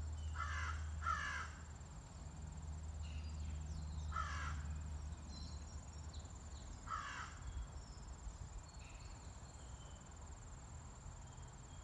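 A crow cawing: two harsh caws in quick succession at the start, then single caws about four and seven seconds in, over a steady high insect trill.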